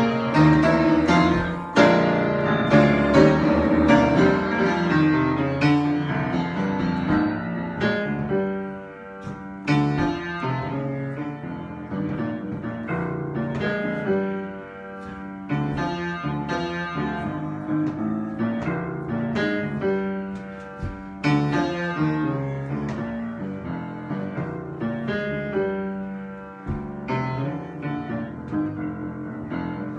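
Solo piano improvisation: chords and melody notes played freely, louder at the start and softer in places.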